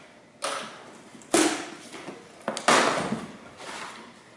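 A cardboard shipping box being opened by hand: four sudden rips and scrapes of packing tape and cardboard flaps, each fading quickly. The loudest come about a second and a half in and near three seconds in.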